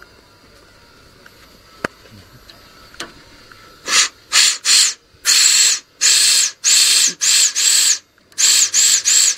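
Compressed-air blow gun fired in a dozen hissing blasts, short and longer ones, starting about four seconds in. The air is blowing out the truck's diesel fuel line to clear water and dirt from it.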